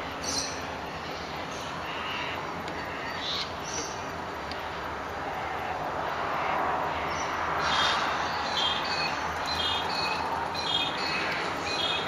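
Birds calling at dawn: scattered short chirps, then a run of quick repeated notes in the second half. Under them is a steady rushing background that swells in the middle.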